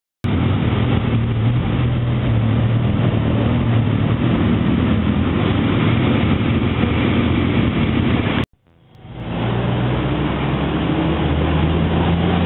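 Motorcycle engine running steadily at low revs. It cuts off abruptly about eight and a half seconds in and fades back in about a second later.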